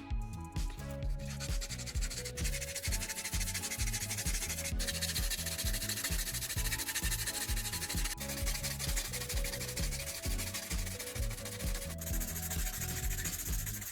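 Steady scratchy sanding of a repaired plastic surface, continuing with a few brief breaks, over background music.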